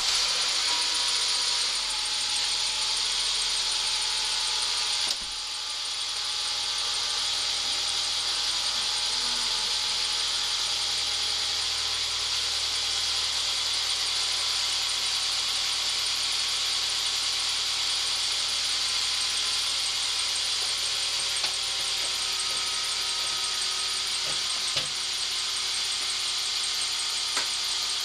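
Mercedes-Benz W246's M270 turbocharged four-cylinder petrol engine idling just after a cold start, with an abnormal high-pitched rapid 'chi-chi-chi-chi' ticking over the running. The idle settles slightly about five seconds in. The recording has its treble boosted to bring out the noise.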